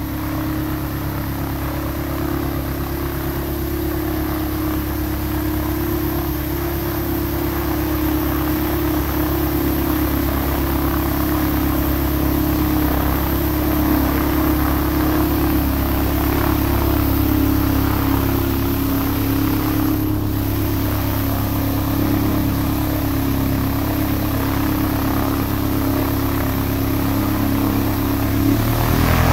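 D-Motor LF26 flat-four aircraft engine running steadily, spinning its propeller; the engine note steps up in speed near the end.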